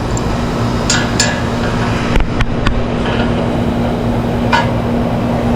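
Metal tools clinking against each other and the condenser housing, a handful of sharp clicks about a second in, two seconds in and again near the end, over a steady mechanical hum.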